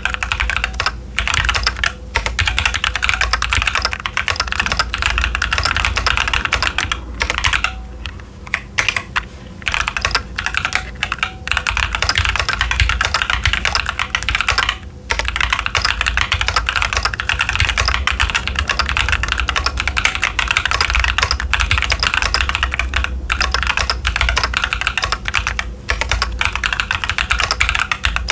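Fast, continuous typing on a Keychron Q10 mechanical keyboard with TTC Chaotic Panda tactile switches and Cherry-profile dye-sub PBT keycaps. There is a short pause about eight seconds in and another about fifteen seconds in.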